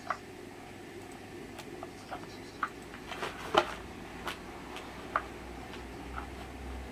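Scattered sharp ticks and rustles from a cat pawing and pushing its head under a fabric play mat on carpet, the loudest a little past halfway.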